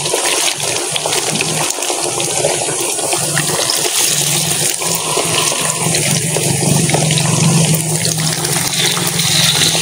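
Battered banana pieces deep-frying in hot oil in a wok, a steady sizzle.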